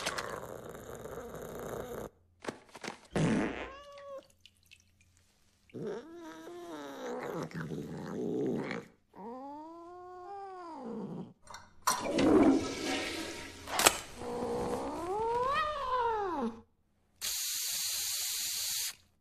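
A cat yowling in a series of long, drawn-out calls, several of them rising and then falling in pitch. Near the end comes a steady hiss of an aerosol air-freshener spray lasting about two seconds.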